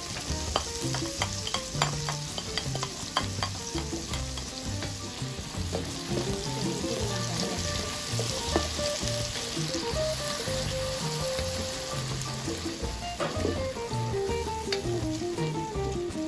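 Crushed tomato frying in hot oil in a large enamelled steel caldero, sizzling steadily as it starts to cook down into a sofrito. A spatula stirs and scrapes against the pan, giving sharp clicks, most often in the first few seconds and again near the end.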